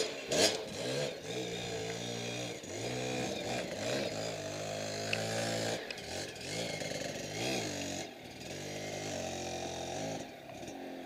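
Two-stroke enduro dirt bike engine revving hard in repeated bursts, its pitch climbing and falling again and again as the bike is worked up a steep climb. A loud sharp knock just after the start.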